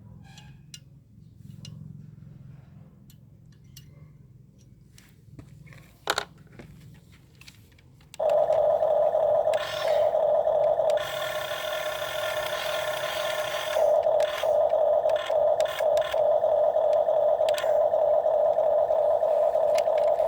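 Low mechanical hum with scattered clicks and a single knock, then from about eight seconds in a loud steady whine that starts suddenly and dips briefly now and then.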